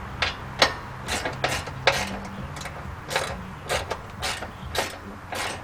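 About a dozen short metallic clicks and clinks, unevenly spaced, from bolts, washers and hand tools being worked into a truck frame.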